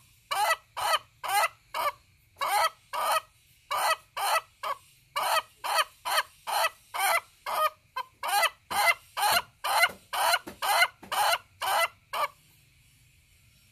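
Ayam Ketawa (laughing chicken) rooster giving its laughing crow: a long run of short, rapid syllables, about two or three a second, that sounds like a human laugh. It stops about a second and a half before the end.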